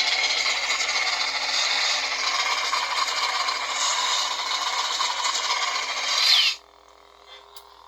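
Lightsaber lockup effect played by a Proffie v2.2 sound board through the hilt's 24mm bass speaker: a steady, harsh noise held for about six and a half seconds. It ends with a short falling tone and then cuts off.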